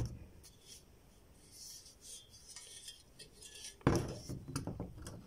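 Metal clutch parts, a pressure plate and clutch disc, knocking and clattering as they are handled and set down on a table: a sharp knock at the start, faint rubbing, then a louder clattering knock about four seconds in.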